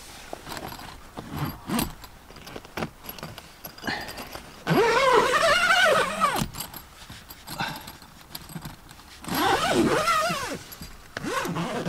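Zip of a roof tent's skylight cover being pulled shut in two long runs, each rasp rising and then falling in pitch as the pull speeds up and slows, with small fabric rustles and clicks between.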